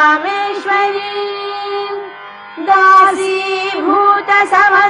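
A woman's solo voice chanting a Sanskrit hymn to Lakshmi in Carnatic style, with held, ornamented notes over a steady drone. The line breaks off briefly about two seconds in, and the next phrase starts about half a second later.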